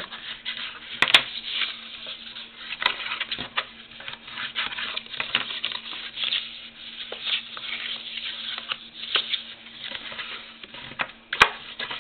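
White cardstock rustling as hands fold it along its score lines into a small box, with scattered sharp clicks and taps from the stiff paper.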